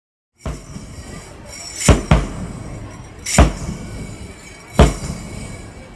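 Loud, sharp thumps about every second and a half, one of them doubled, over a steady outdoor background with faint high-pitched steady tones. The sound cuts in just under half a second in.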